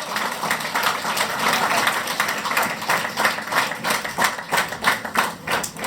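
A small group applauding: a dense patter of claps that thins out to separate claps, about four a second, near the end.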